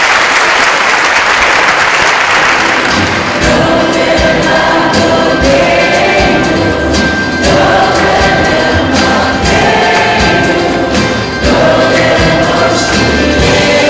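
Audience applauding, then about three seconds in an upbeat band with a steady drum beat and a choir of singing voices starts up over the clapping.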